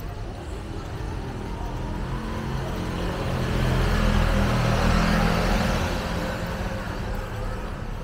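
A motor vehicle passing close by: its engine and tyre noise swells to a peak about halfway through, then fades as it moves away.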